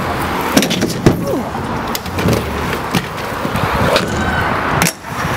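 Aggressive inline skate wheels rolling on concrete ramps, a steady rough rolling noise with sharp knocks and scrapes as the skates hit the ramp edges and metal coping.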